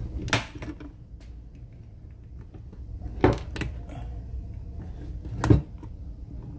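Plastic housing of a Black & Decker Quick Press iron being prised apart with a flat-blade screwdriver: a few sharp clicks and knocks of plastic and metal on plastic, the loudest near the end as the cover comes loose.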